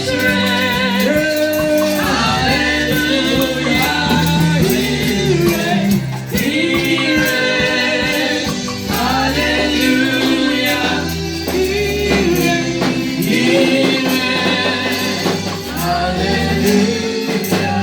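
Gospel music: singing with choir-like voices over an instrumental accompaniment with held bass notes.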